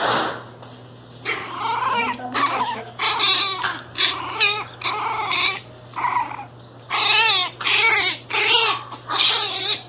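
Pinscher puppy crying out in a string of short, high, wavering yelps and whines, with some growling, while a cat wrestles it.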